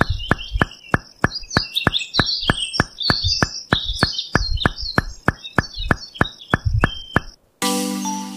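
Steady, even clicking at about four clicks a second, with birds chirping over it and some low thuds underneath. About seven and a half seconds in it cuts off and a chiming music cue starts.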